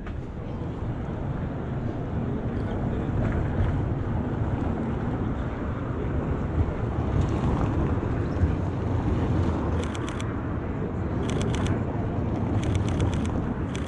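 Steady low rumble of wind on the microphone mixed with city street noise. Three short runs of quick clicks come in the second half.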